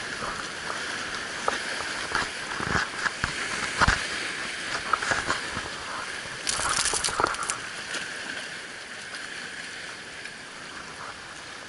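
Sea water washing and sloshing over a rocky shore, as a steady hiss. A few sharp knocks come in the first four seconds, and a short rattling clatter about six to seven and a half seconds in.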